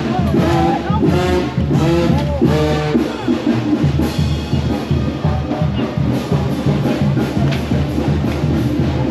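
Brass band playing with drums, the horns carrying a melody over a steady drum beat.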